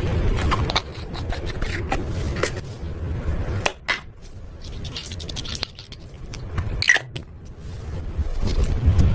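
Slime being mixed and squeezed by hand: irregular clicks and pops over a low handling rumble, sparser in the middle.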